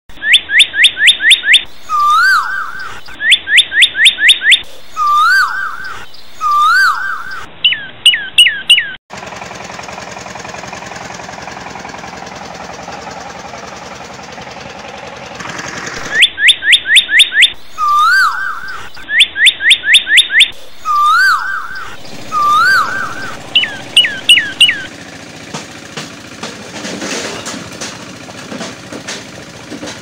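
Repeated bird-like chirping, clusters of quick rising chirps alternating with lower whistled notes, looped in an identical pattern. It breaks off suddenly about nine seconds in, giving way to a steady mechanical noise for several seconds, then the chirping returns and gives way again to a fainter steady noise.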